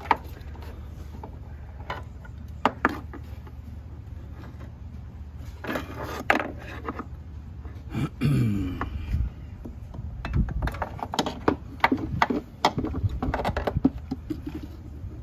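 Scattered clicks and knocks of a rock-light cable and plastic engine-bay parts being handled as the wire is fed through a Jeep JK's engine bay, growing busier after the halfway point, over a steady low hum.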